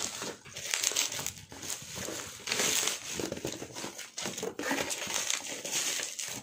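Bubble wrap and plastic packaging crinkling and rustling in irregular handfuls as it is pulled off a newly delivered appliance.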